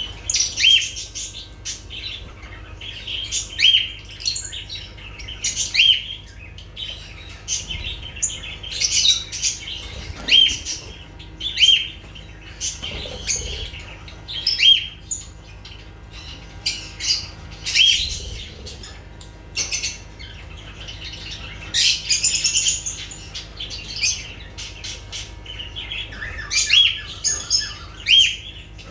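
Lovebirds chirping and squawking: short, sharp, high-pitched calls repeated every second or so, with a denser burst of chatter partway through.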